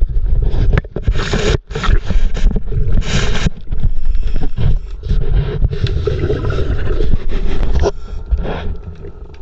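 Water sloshing and rumbling around an underwater camera housing as it is moved about, in irregular loud surges with a few sharp knocks. It quietens about eight seconds in.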